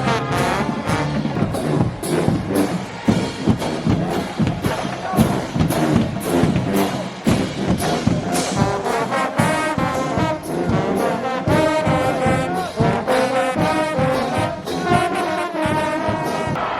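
Marching band playing: brass led by trombones and trumpets over a steady drum beat.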